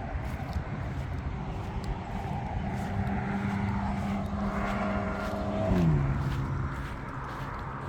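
A motor vehicle passing close by, its engine and tyre hum growing louder, then dropping sharply in pitch as it goes past about six seconds in.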